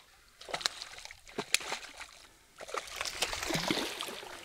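Water sloshing and splashing, with scattered sharp clicks and knocks and a longer wash of water about two and a half seconds in.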